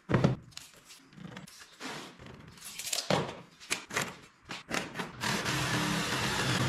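A pine board is set down on a wooden tabletop with a knock, followed by scattered taps and scrapes as it is handled and marked with a square. About five seconds in, a jigsaw starts and runs steadily, cutting across the board.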